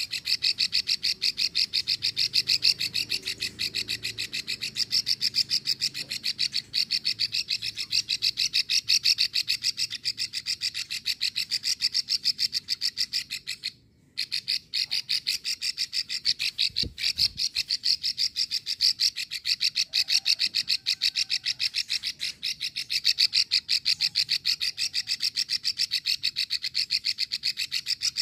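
Female plain prinia (prenjak sawah) giving its long 'ngekrek' call: a fast, even run of clicks that keeps going, broken once by a short pause about halfway through.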